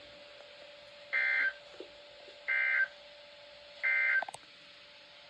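Three short bursts of NOAA Weather Radio SAME data tones, the End of Message code that closes an Emergency Alert System message. Each burst lasts about a third of a second, with a bit over a second between them, over a faint steady hum.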